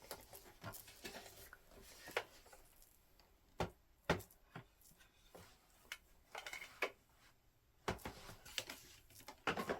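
Plastic parts of a Shark upright vacuum clicking and knocking as they are handled and fitted together, in scattered sharp taps with a short cluster about two-thirds of the way through and more near the end.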